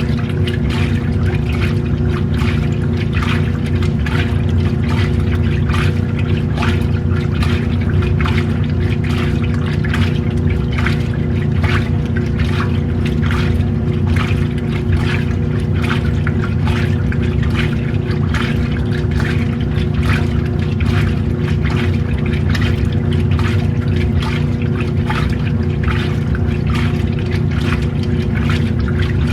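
Washing machine running a wash: a steady motor hum, with water sloshing in the tub in regular strokes about twice a second.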